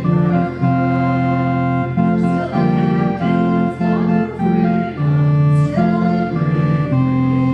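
Organ playing hymn music in sustained chords that change every half second or so.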